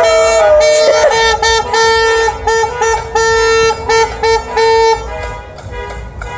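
Car horns honking in celebration. One long horn blast holds for about a second. Then another horn beeps in a rhythmic pattern of short and long honks for about four seconds, after which it drops to quieter traffic noise.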